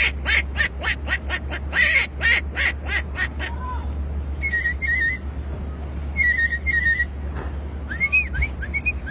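A man imitating birdsong with his mouth. He opens with a rapid run of sharp clicks lasting about three seconds, then gives two short whistled phrases of a few notes each. Near the end come quick upward-sliding whistles.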